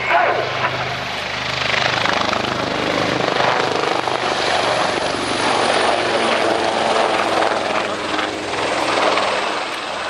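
Westland Wildcat helicopters flying low past the crowd: loud rotor and turbine noise that rises and falls in waves as they pass.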